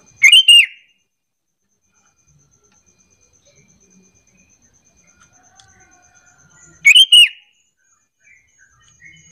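Sooty-headed bulbul (kutilang) calling: a loud, brisk phrase of a few quick whistled notes just after the start, repeated about seven seconds later, with faint softer sounds in between.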